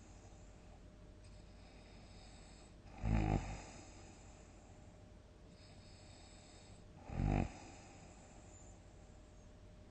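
A sleeping person snoring loudly: two heavy snores, each about half a second long and about four seconds apart, with quiet breathing pauses between them.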